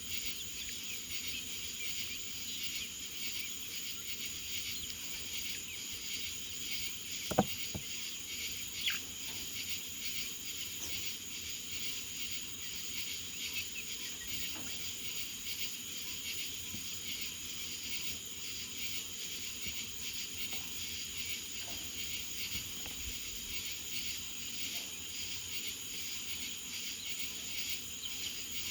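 Insect chorus chirring steadily in high-pitched bands, with two short sharp clicks about seven and nine seconds in.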